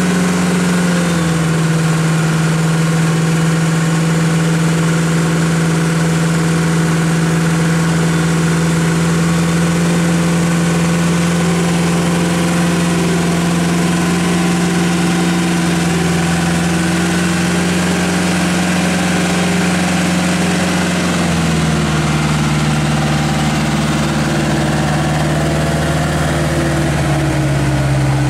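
Diesel engine of a Mitsubishi dump truck labouring slowly through deep mud at steady revs. Its pitch steps down slightly about a second in and again about 21 seconds in.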